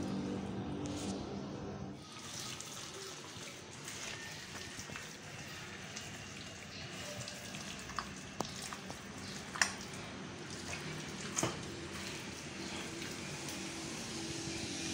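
Wet gram-flour batter with sliced onion squelching and slapping as a hand kneads it in a plastic bowl, with a few sharp clicks of the hand knocking the bowl about halfway through. A low steady hum cuts off about two seconds in.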